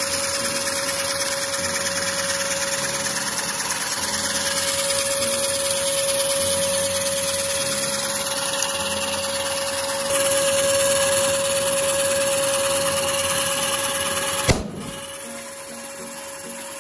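Small DC motor driving a homemade syringe piston compressor, running steadily with a constant whine while pumping air into a rubber balloon. About fourteen seconds in, a sharp bang as the over-inflated balloon bursts, after which the compressor keeps running more quietly.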